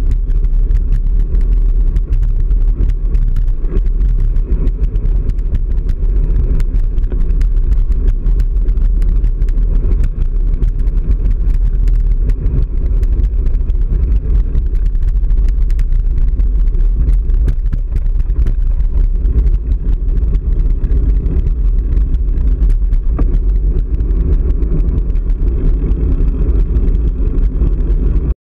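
Steady wind and road rumble on a bike-mounted camera's microphone, with frequent small clicks and rattles as the bike rolls over a rough, unpaved road.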